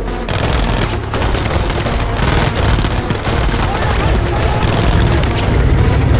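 Film battle soundtrack: rapid, continuous gunfire from many rifles and machine guns over a heavy low rumble of booms.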